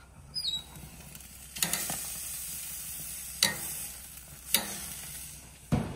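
A steak searing on the hot grate of a stainless Weber Summit 670 gas grill: a steady sizzle starts about one and a half seconds in, with sharp clicks of metal tongs against the grate. A heavy metal thump near the end as the grill lid shuts.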